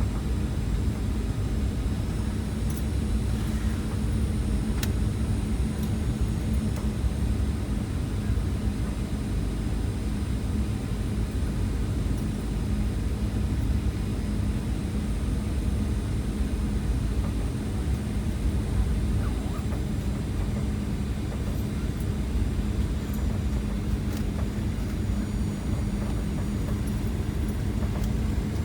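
Steady cabin noise of a jet airliner in flight: a low rumble with a steady hum and a faint high whine.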